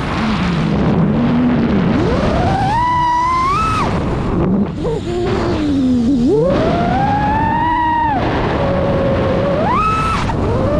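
FPV freestyle quadcopter's brushless motors whining, the pitch swooping up and down several times as the throttle is punched and cut, over a steady rush of propeller wash.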